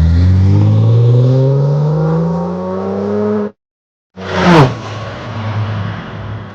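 Corvette's LS V8, running on seven of its eight cylinders with one cylinder's coil and injector disconnected, accelerating with its pitch rising steadily for about three and a half seconds before cutting off. After a brief silence, a car goes past close by with a quickly falling pitch, the loudest moment, then an engine runs on more quietly.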